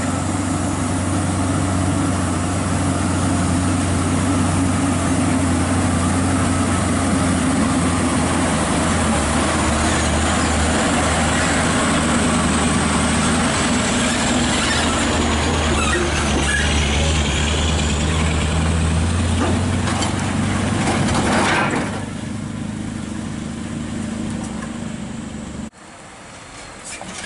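Scania R580 heavy-haul truck's V8 diesel engine running hard under load, hauling a lowboy trailer with an excavator, with faint high squeals partway through. The engine sound drops off about 22 seconds in, and near the end a quieter truck takes over.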